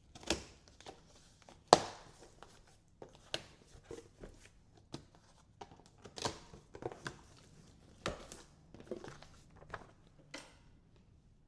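A cardboard box and its packaging being handled and opened by hand: irregular knocks, scrapes and rustles, with one sharp knock just under two seconds in.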